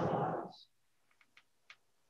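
A man's voice ends a spoken phrase of the liturgy about half a second in. After that it is quiet apart from four or five faint, short clicks.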